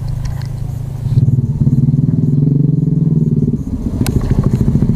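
A motorcycle engine running close by, growing louder about a second in and easing off after about three and a half seconds. A single sharp click comes near the four-second mark.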